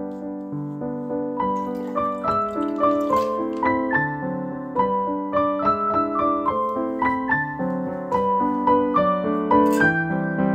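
Background piano music: a steady stream of melody notes over a lower accompaniment.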